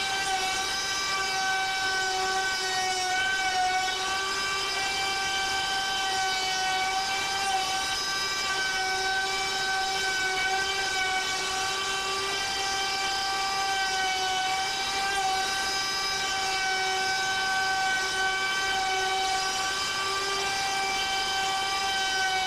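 Router spindle on a CNC Shark machine running at speed while its straight bit mills a pocket in a wood board: a steady whine whose pitch wavers slightly.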